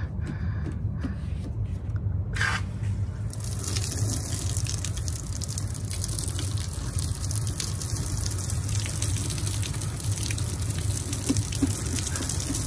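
Overhead rain shower head running, water spraying down and splashing onto a person standing under it; the spray sets in about three seconds in and then runs steadily. A steady low rumble lies underneath.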